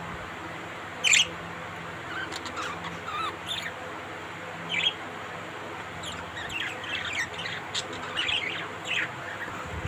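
Pet parrots calling with short, sharp cries at irregular moments, the loudest about a second in and a quick run of calls in the second half.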